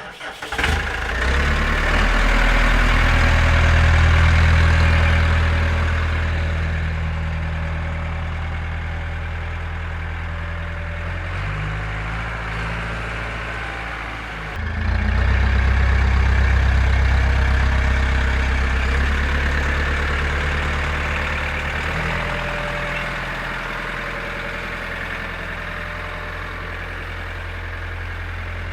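A small engine running steadily at idle, its tone and level shifting abruptly a few times.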